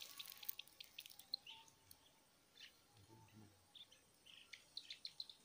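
Near silence with faint, scattered short bird chirps.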